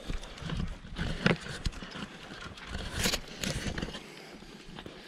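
Footsteps and dogs' paws on a concrete driveway, with irregular scuffs, taps and knocks of walking with dogs on leads.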